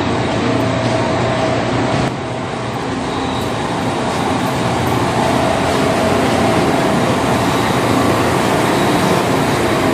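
Continuous urban street noise: a steady mechanical hum with a faint constant whine and no distinct separate events.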